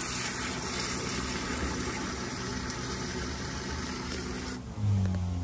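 Water spraying from a handheld shower head into the plastic bowl of a portable chemical toilet, filling the bowl with flushing water; the steady spray stops about four and a half seconds in.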